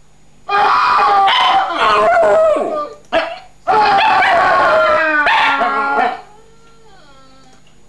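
A dog howling along to played sound effects, in two long stretches of wavering, pitched howls, the second ending about six seconds in and trailing off into faint, thin sounds.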